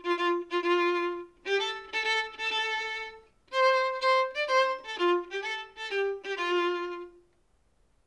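Solo violin playing a slow, simple tune of held notes in three short phrases, stopping about seven seconds in.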